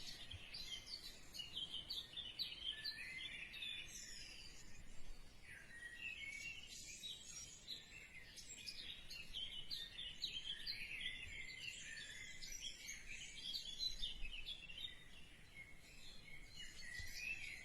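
Faint background chirping of small birds: many short, high chirps overlapping without pause.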